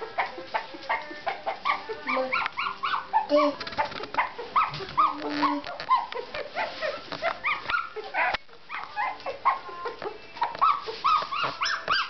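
Chinese Crested puppies whimpering and yipping: short high rising-and-falling cries, several a second, with a short lull about eight seconds in.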